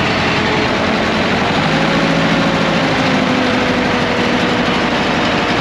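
Diesel farm tractor engine idling steadily.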